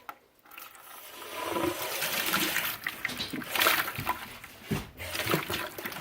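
Water rushing out of a water heater's newly fitted pressure relief valve, opened by hand to test it. The rush builds up about half a second in.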